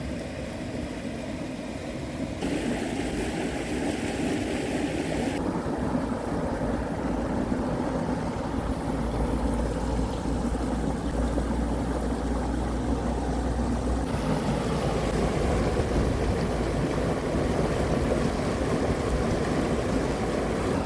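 Creek water rushing steadily over a small dam into a pool. The sound shifts abruptly a few times, with a low rumble for a few seconds midway.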